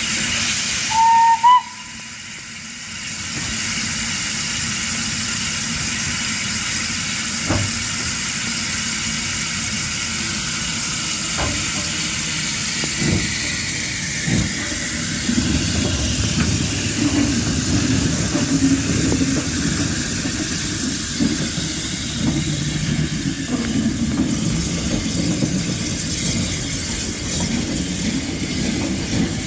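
A WD Austerity saddle-tank steam locomotive hissing steam, with a short whistle blast about a second in. From about halfway, a low rumble builds under the hiss as the engine and its coaches move off.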